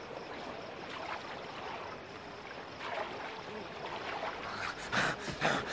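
Soft lapping of lake water around a boat coming in to shore, with a few louder splashes about five seconds in.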